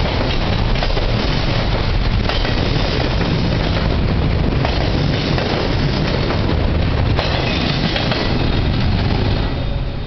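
Loud, steady rumble of a freight train's steel wheels on the rails as double-stack container cars and trailer flatcars pass close by. It eases a little near the end as the last cars go by.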